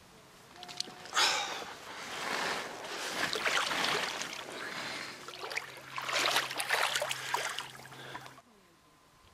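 Lake water sloshing and splashing in the shallows as a large mirror carp is lowered back in and released by hand, in irregular bursts of splashing; it cuts off suddenly near the end.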